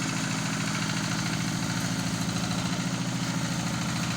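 Rice harvester's engine running steadily at an even, low speed.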